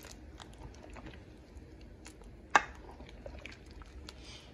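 Metal ladle stirring and scooping a pot of green pozole with hominy: soft wet sloshing and small scattered clicks, with one sharp clink a little past halfway.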